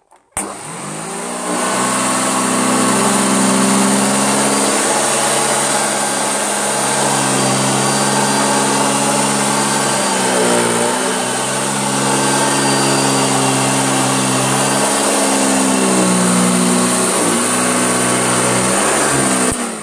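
Bagged Hoover Junior upright vacuum cleaner switched on about half a second in, its motor running with a steady hum during a cleaning pass. The pitch dips briefly about halfway through and wavers near the end, and the vacuum is switched off just before the end.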